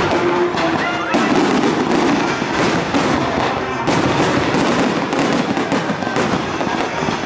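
Aerial fireworks shells bursting in quick succession: continuous crackling, with sharp booms about a second in, near four seconds and about six seconds in.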